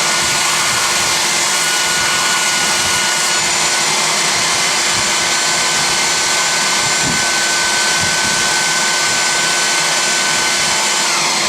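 Porter-Cable 371 belt sander with a 60-grit belt running steadily, sanding a wooden mallet head, with a dust-extraction vacuum running alongside. Near the end the motor's whine falls in pitch as the sander winds down.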